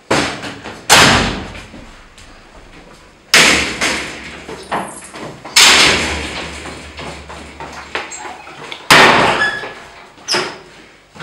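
Six loud, heavy bangs on a door at uneven intervals, each ringing out briefly before the next.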